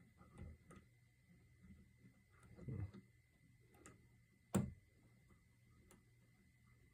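Faint, irregular metallic clicks and scrapes of a tickler rake pick and tension bar working the pin-tumbler lock of a Kwikset doorknob, with a sharper single click about four and a half seconds in. The lock does not open.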